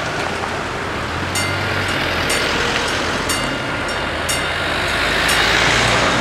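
Cars driving over a railway level crossing, engines and tyres running steadily. About a second in, the crossing's warning bells start ringing, about two strokes a second alternating strong and weak, the signal that a train is approaching.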